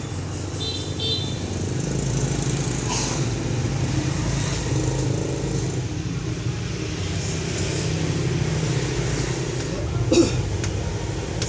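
A steady low mechanical hum, like a running motor, with a short knock about ten seconds in.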